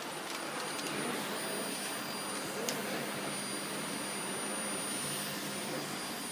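Vacuum cleaner running steadily with its floor head on a rug: an even rushing hiss with a thin high whine, and a short click about two and a half seconds in.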